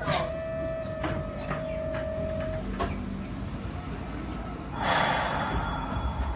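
A tram stands at the platform: a steady electric tone sounds for about two and a half seconds among a few sharp clunks. About five seconds in comes a loud rush of hissing compressed air from the tram's pneumatic system as it readies to depart.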